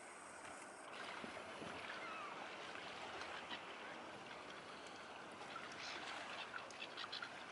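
Faint harbourside water ambience: a steady wash of water, with a few faint short calls from a distant feeding flock of gulls.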